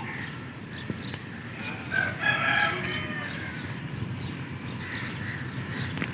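Low, steady rumble of an AGE-30 diesel locomotive engine pulling out, with a rooster crowing once, about two seconds in.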